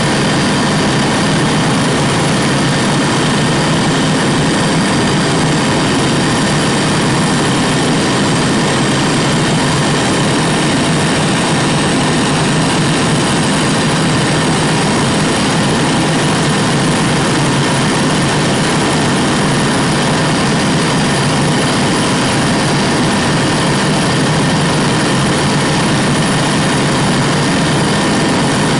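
Jet-turbine noise on an aircraft ramp: a constant rushing roar with a steady, unchanging whine layered over it.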